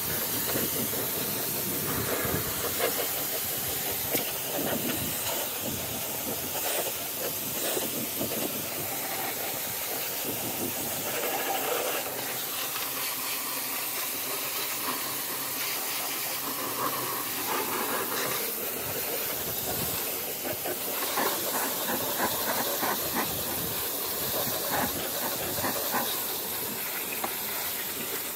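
Pressure washer spraying water onto the stripped metal floor pan and into the doors of a car interior, a steady hissing spray that varies a little as the wand moves. It is washing salt-water flood residue out of the car.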